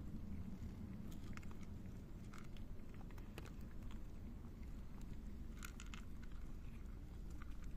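Cats crunching dry kibble from a bowl: irregular crisp crunches over a low steady background rumble.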